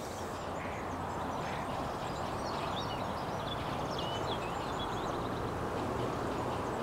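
Rural outdoor ambience: a steady, even hiss with faint scattered bird chirps above it, most of them in the middle of the stretch.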